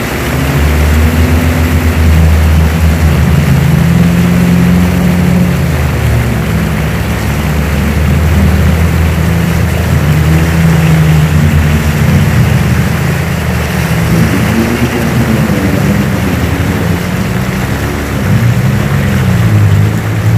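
Off-road 4x4's engine running hard under load, its pitch rising and falling with the throttle.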